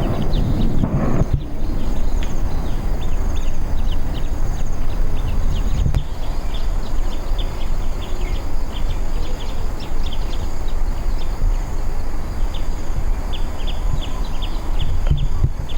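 Steady rushing of a forest waterfall, strongest in the low rumble, with rapid high chirping calls and a steady high-pitched insect drone over it.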